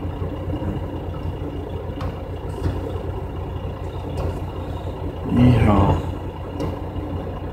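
Steady low rumble of an idling semi-truck diesel engine, heard from inside the cab. A brief murmur of the driver's voice comes about five and a half seconds in.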